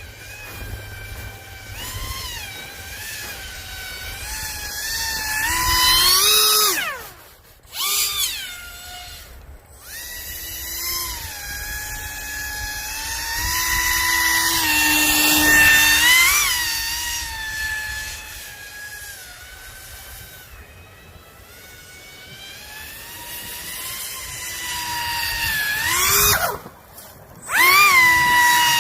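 Pro Boat Aerotrooper RC airboat's electric motor and fan whining, the pitch rising and falling as the throttle is worked. The whine climbs to a peak and cuts out briefly about seven seconds in and again near the end, then picks up again.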